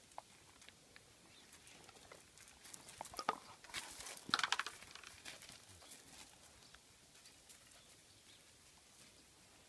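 Vizsla picking up a stick from gravel: a cluster of scrapes, crunches and clicks from the stick and paws on the stones, loudest around four seconds in, then quiet.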